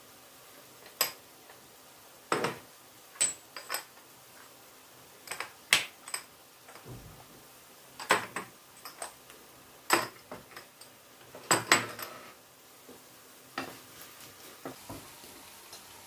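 Small ceramic dishes, lids and spoons clinking and knocking against one another and the counter: a string of sharp, irregular clicks and taps.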